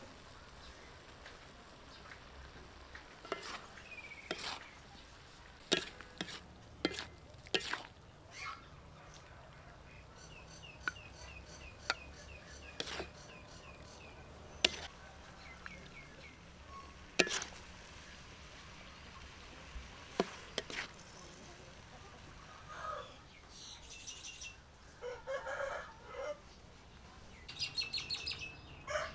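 A spatula knocks and scrapes against a wok as a stir-fry is tossed and then scooped onto a plate, a dozen or so sharp clicks. Birds chirp in the background, and a rooster crows near the end.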